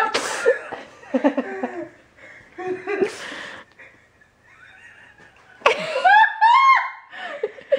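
People laughing in bursts, dying down briefly, then a loud high-pitched fit of giggling about six seconds in.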